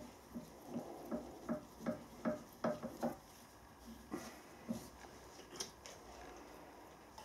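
Faint, light metallic clicks and taps as a small twist drill is handled and fitted into a drill press chuck: a quick run of about a dozen in the first three seconds, then a few scattered ones.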